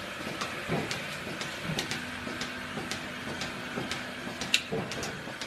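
Robotic milking machine at work on a cow, clicking steadily about twice a second, the rhythm of the milking pulsator, over a steady hiss. One louder click comes about four and a half seconds in.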